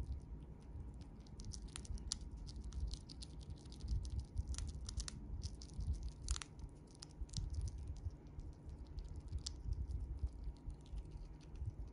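A Siberian chipmunk crunching a dried vegetable chip: rapid, irregular crisp crackles of its teeth nibbling through the brittle chip.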